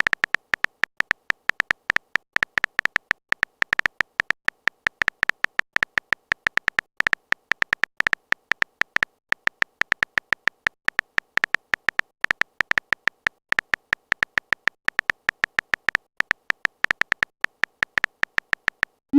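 Rapid, slightly irregular stream of short high-pitched ticks, about six a second: a typing sound effect of the kind played as chat messages appear letter by letter.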